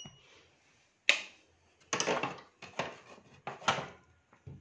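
Handling noise: about six sharp clicks and light knocks, irregularly spaced, the first about a second in the loudest.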